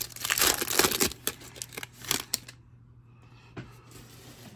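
Foil wrapper of an Upper Deck hockey card pack crinkling as it is torn open and the stack of cards is pulled out, stopping about two and a half seconds in. A single light tap follows about a second later.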